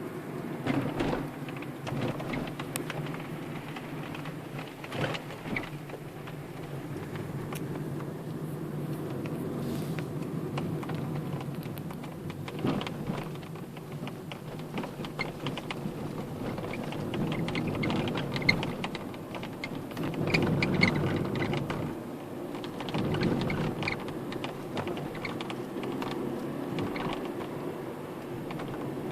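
Hyundai Solaris dashboard creaking, with irregular small clicks and crackles over a low cabin rumble. The creak comes from the whole dashboard, not only its right side, and has been worse since part of the dashboard was moved a few millimetres toward the cabin.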